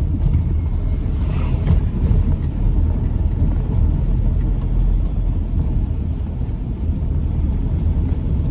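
Steady low rumble of wind and road noise from a vehicle under way on a winding road.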